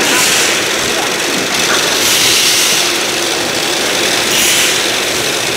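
Cup sealer and coding conveyor line running: a steady, loud mechanical noise of conveyors carrying filled plastic cups, with a higher hiss that swells now and then.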